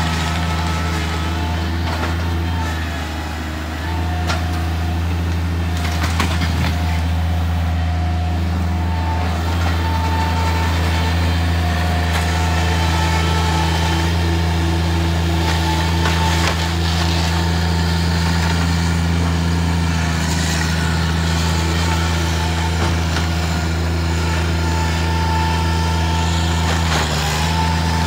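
Bobcat MT100 stand-on mini track loader's diesel engine running steadily under load while it works a shed demolition pile, with a few sharp knocks of lumber and debris being shifted.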